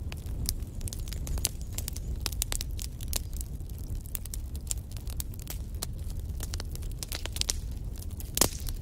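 Wood fire crackling: many sharp pops and snaps over a steady low rumble of the flames, with one louder crack near the end.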